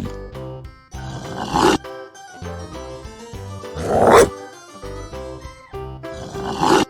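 Upbeat background music with a dog sound effect laid over it: three loud growling calls, about a second in, around four seconds (the loudest) and near the end.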